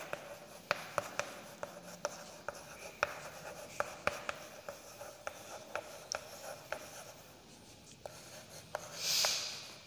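Chalk writing on a chalkboard: a run of sharp taps and short scratchy strokes as figures and words are written, with a brief louder hiss near the end.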